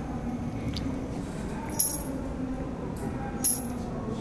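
Two short, bright metallic clinks of small steel parts, a little under two seconds in and again about a second and a half later, over a steady low room hum.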